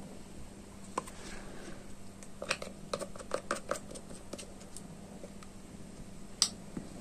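Small clicks and taps from hands handling a tube of glue and a crocheted toy. There is a single click about a second in, a quick run of clicks from about two and a half to four seconds, and one sharp click near the end, all over a faint steady hum.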